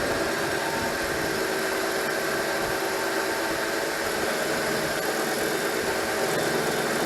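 Electric drill with a spot weld cutter running steadily, cutting through a spot weld in the car's sheet-steel body panel. The motor holds an even pitch without slowing.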